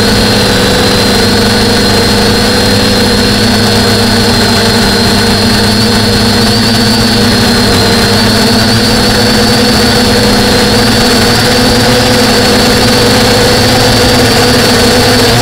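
DJI F450 quadcopter's brushless motors (DJI E300, 920 kV) and propellers running in steady flight, heard close up through the onboard action camera. A loud, steady hum with a high whine that wavers slightly in pitch.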